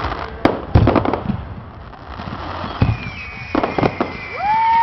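Aerial fireworks bursting: a quick run of sharp bangs with crackling, the two loudest within the first second. From about three seconds in, high thin whistles sound, and near the end one whistle glides up and holds.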